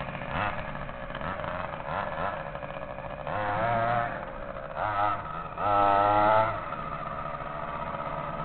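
23cc two-stroke gas engine of a 1/5-scale RC Hummer H1, revving up in several short bursts and dropping back to idle in between. The longest and loudest rev comes about six seconds in.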